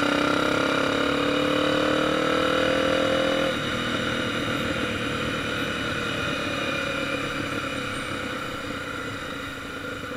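Motorcycle engine under way, its note rising slowly as it pulls, then dropping suddenly about three and a half seconds in to a lower, rougher running sound that slowly fades.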